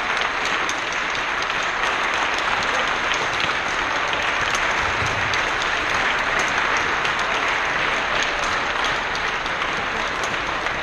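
Audience applauding steadily, many hands clapping at once, easing a little near the end.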